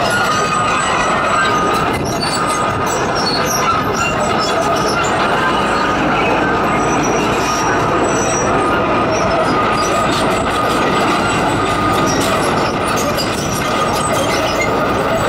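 Komatsu PC220 crawler excavator travelling on its steel tracks: continuous clanking and squealing of the track links, with the diesel engine running underneath and a high tone coming and going.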